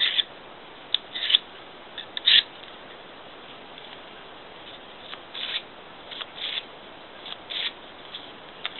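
Knife blade drawn through an Edge Maker Pro pull-through sharpener, short scraping strokes that mostly come in quick pairs with pauses between them. It is a sharpener that leaves a rough, grabby edge rather than a smooth one.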